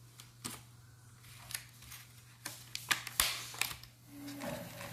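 Clear plastic strawberry clamshell being handled and shifted on a tile floor: scattered sharp clicks and crackles of the thin plastic, several spread through the few seconds.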